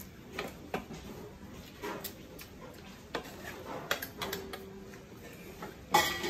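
Metal ladle stirring pork in sauce in a steel wok, giving irregular clinks and scrapes against the pan, with a louder clank about six seconds in.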